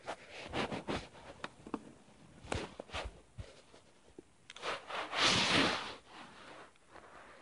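Rustling and rubbing handling noise with scattered sharp clicks, and a louder, longer rustle about five seconds in.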